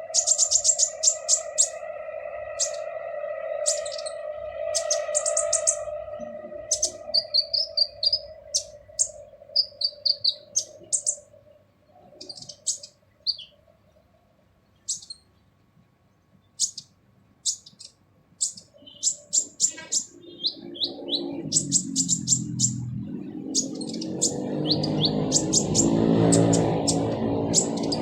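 Kolibri ninja sunbird calling: sharp, high chirps in quick rapid runs and short trills, coming in bursts with gaps. A steady low hum with overtones fades out in the first part, and a low droning sound swells up in the last third.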